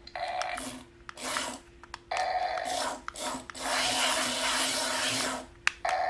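Small electric gear motors of a remote-control toy whirring and grinding in a series of short bursts as it drives and turns, with one longer run of about two seconds in the middle.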